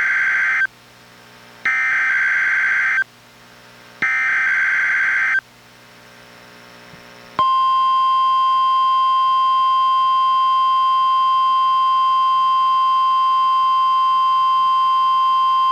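NOAA Weather Radio SAME alert header on a Reecom R-1630 weather radio: the end of one raspy digital data burst and two more, each about a second and a half long, with faint hiss between. About two seconds after the last burst comes the steady 1050 Hz warning alarm tone, held unbroken. This is the opening of a Required Weekly Test of the receivers' warning alarm.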